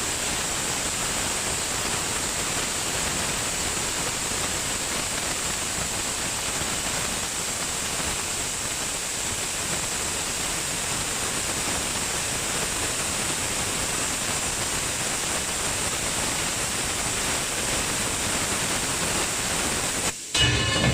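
Steady, even hiss of a cutting torch on a CNC pipe profile cutting machine cutting through tube, broken off suddenly near the end.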